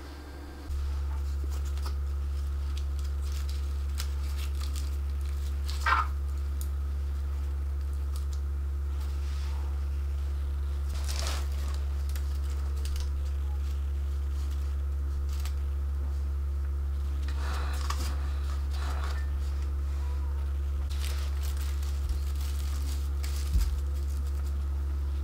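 A steady low hum throughout, with scattered rustling and crinkling as hands handle wafer-paper ruffles and a fondant skirt. The handling is loudest about six seconds in, with more around eleven and eighteen seconds in.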